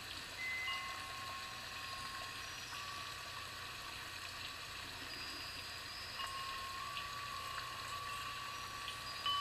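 Ambient background track of steady running-water hiss with thin, sustained chime-like tones that come and go, more of them in the second half.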